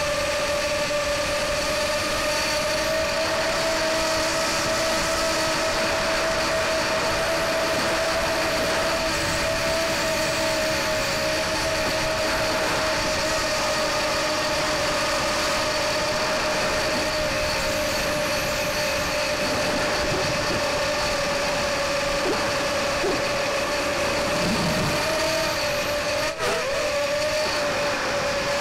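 Electric motor and propeller of a small RC plane running hard in flight, heard from a camera on the airframe: a steady whine over a rush of air noise, with a brief dip and wobble in pitch near the end.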